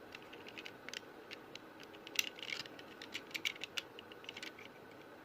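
A small toy car being handled and turned over in the fingers: a scattered run of light clicks and taps, thickest about two to three seconds in.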